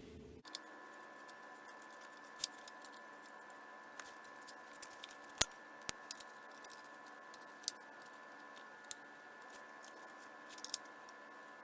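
Small screws and a screwdriver clicking and ticking against the polymer shells of a Magpul Hunter rifle stock as its four short side screws are put in: scattered faint clicks, the sharpest about halfway through, over a steady faint hum.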